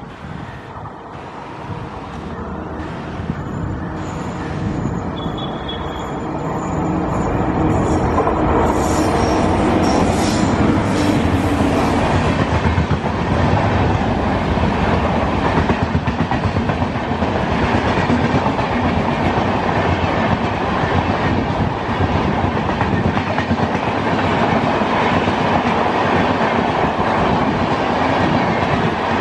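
Express passenger train of red LHB coaches hauled by a WAP7 electric locomotive, passing at speed. The rumble grows louder over the first several seconds, then settles into a steady rush with rapid, regular clickety-clack of the wheels over rail joints.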